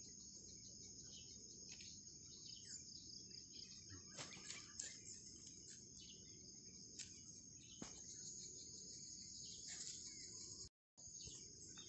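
Faint, steady insect chorus, a high even drone, with scattered light clicks. It drops out completely for a moment near the end.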